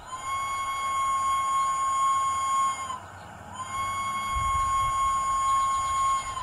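Hornby TTS sound decoder's steam locomotive whistle, played through a small sugar cube speaker in an OO-gauge model loco: two long single-note blasts of nearly three seconds each with a short pause between, each bending slightly in pitch as it starts and ends. A low rumble comes in during the second blast.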